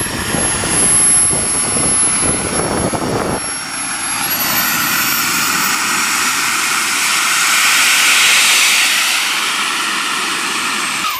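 Small turbine engine of a radio-controlled model jet running as it taxis, a high steady whine over a loud jet rush. A low rumble stops about three and a half seconds in. The whine then climbs in pitch and the rush swells, as the throttle is opened to push the jet across grass.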